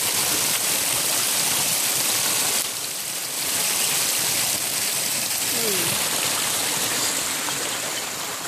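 Spring water running and splashing over a rock close by, a steady rushing trickle that dips briefly at about three seconds.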